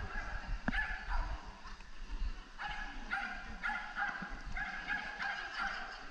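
A dog barking over and over in short, high-pitched barks: a few about a second in, then a quick run of barks after a short pause.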